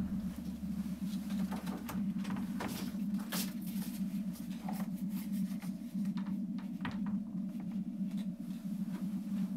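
A steady low hum with irregular clicks and crackles scattered over it.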